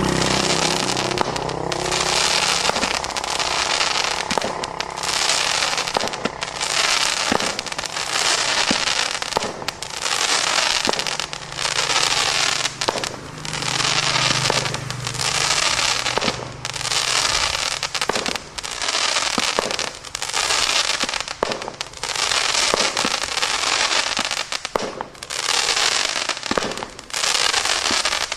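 Fireworks going off shot after shot, about one a second, each a sharp bang followed by a hiss lasting about a second.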